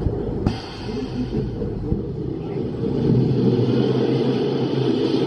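Pax family roller coaster train rolling out of the station toward the lift hill: a steady low rumble, with a motor hum that grows stronger about three seconds in. A sharp click comes about half a second in.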